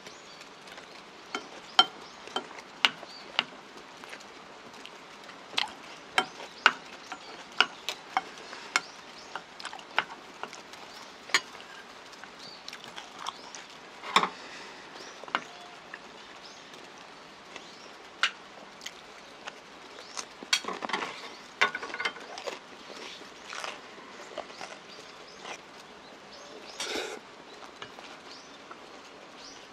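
A spoon clicking and scraping against a porcelain bowl as the last of the bibimbap is scooped up, with chewing and mouth sounds in between.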